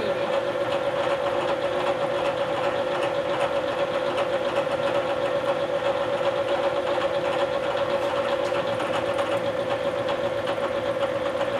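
Bridgeport vertical milling machine running steadily, its end mill cutting an aluminum block as the table is fed by hand, with a steady tone over the cutting noise.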